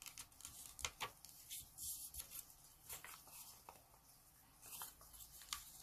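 Faint rustling and crinkling of a small sheet of origami paper being folded inward and creased by hand, a scatter of soft paper clicks.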